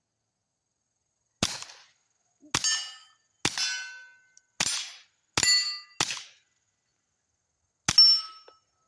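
Seven suppressed shots from a SIG P322 .22 LR pistol fitted with a Yankee Hill Phantom 22 suppressor, fired at an uneven pace. Each shot is a sharp, quiet crack followed by the clang of the bullet striking a steel target, which rings briefly at a few pitches.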